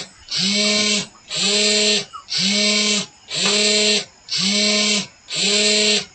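Hobby servo motor controlled by an Arduino Uno, swinging back and forth between 0 and 180 degrees. Its geared motor whirs in bursts of most of a second, about once a second, with a short pause at each end of the swing.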